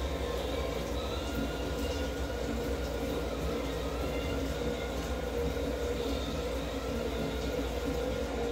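A steady low mechanical rumble and hum that runs on without a break.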